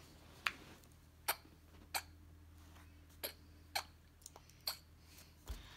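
Pencil making short strokes and dots on a sheet of paper: a string of brief, faint scratches and taps, about one or two a second.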